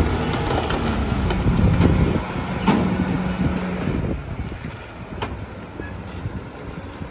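Diesel engine of a McNeilus split-body rear-loader garbage truck running as the truck drives off, with scattered rattles and knocks from the body. The engine sound drops off about four seconds in.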